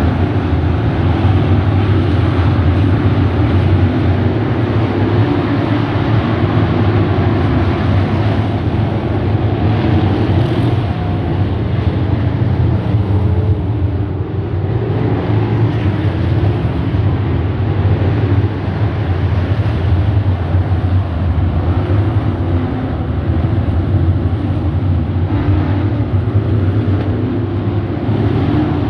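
A pack of dirt-track modified race cars circling the oval, their engines running steadily, loud, with a slightly wavering pitch.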